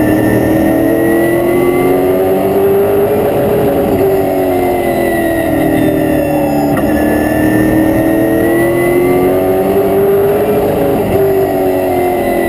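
Late-model stock car's V8 engine heard from inside the cockpit at racing speed. The engine pitch climbs for a few seconds on each straightaway and falls off through the turns, in two full cycles.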